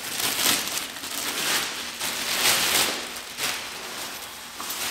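Rustling and crinkling of a 509 Ether snowmobile jacket's shell fabric as it is pulled out, handled and unfolded, coming in several swells.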